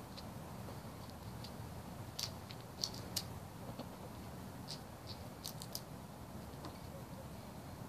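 Hens pecking at peanuts on bare ground: scattered sharp beak taps, several in quick succession in two short clusters, over a faint steady low background.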